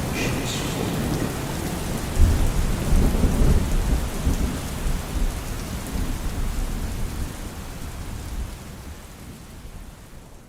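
Steady rain with a low rumble of thunder that swells about two seconds in and dies away, the whole rain sound fading out near the end.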